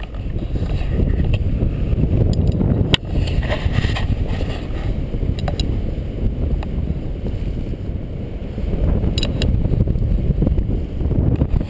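Wind buffeting the camera microphone in paraglider flight: a loud, gusting low rumble of rushing air, with a few sharp clicks about three seconds in and again near nine seconds.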